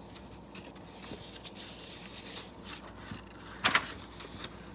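Faint rustling and handling noise from a paper book, with small scattered clicks and one brief louder rustle about three and a half seconds in.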